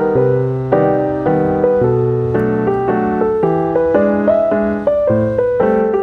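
Background piano music: a melody of struck notes over chords, moving at about two or three notes a second.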